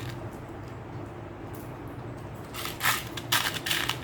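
Real seashells being picked up and set down, a quick run of small clicks and rustles starting a little over halfway through, over a faint steady hum.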